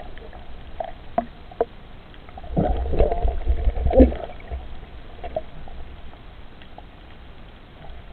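Underwater sound muffled by a camera housing: a low rumble of water with scattered sharp clicks, swelling louder for about a second and a half just before the middle.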